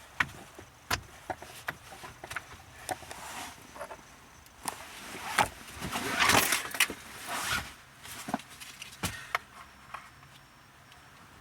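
Scattered clicks, taps and knocks with a longer stretch of scraping and rattling in the middle, from hand work on the steering column's plastic trim and switch parts.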